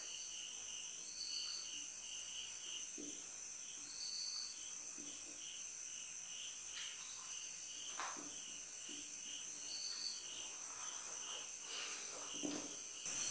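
Crickets chirping in an even pulse of about two to three chirps a second, over a steady high-pitched insect drone. A few faint short scrapes of a marker writing on a whiteboard come through, the clearest about eight seconds in.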